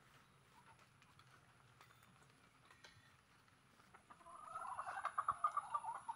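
A native chicken clucking: a rapid string of short clucks, about five a second, starting about four seconds in after a near-quiet stretch.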